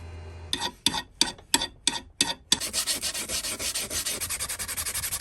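Abrasive hand strokes on the metal of a vise part, smoothing a rough surface. There are six or seven slow separate scrapes, then fast, even back-and-forth rubbing from about halfway. A low steady hum stops about half a second in.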